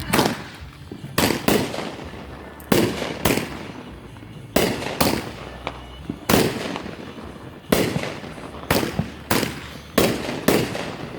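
Fireworks going off in a quick, uneven series of about fifteen sharp bangs, each fading briefly, spaced half a second to a second and a half apart.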